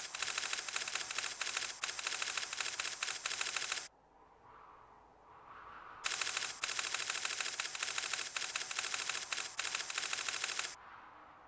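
Teletype-style typing clatter: two long runs of fast mechanical clicks as text is printed out. The first stops about four seconds in, and the second starts about two seconds later and stops near the end, with only a faint background hum in between.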